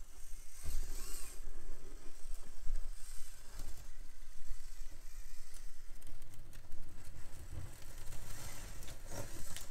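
Micro RC rock crawler with a brushed motor driving slowly up rough rock steps: the drivetrain whirring under load, with the tyres scraping and clicking over the textured surface.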